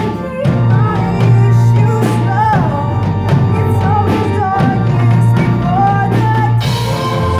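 Live rock band playing: a girl singing over electric guitars, keyboard and drum kit.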